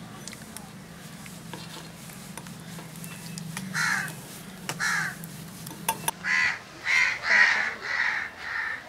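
Crow cawing: single caws about four and five seconds in, then a quicker run of about five caws near the end.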